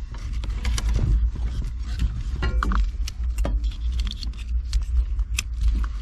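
Wiring being handled and pushed into place under a pickup's dashboard: scattered light clicks and rustles over a steady low rumble.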